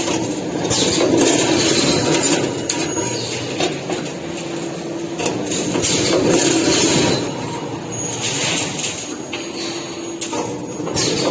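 Heavy-duty 2D CNC wire bending machine working steel wire in repeating cycles. A steady motor whine alternates with louder noisy stretches of feeding and bending about every four to five seconds, with a few sharp clanks.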